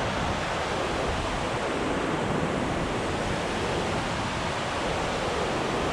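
Fast, turbulent river water rushing steadily in the tailwater below a dam spillway, a constant even rush with no breaks.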